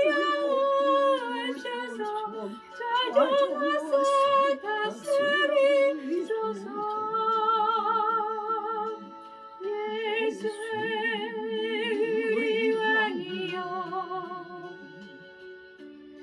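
Music from a Korean gospel praise song: the melodic introduction before the lyrics begin, with sustained wavering melody lines that fade down near the end.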